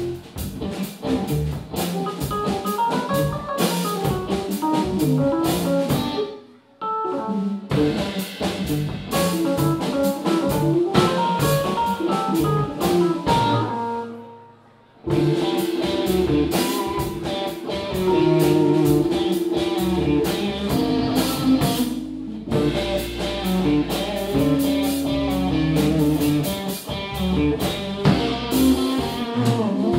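Live band playing: electric guitar over a drum kit with cymbals. The music nearly drops out twice, about seven and fifteen seconds in, then comes back in.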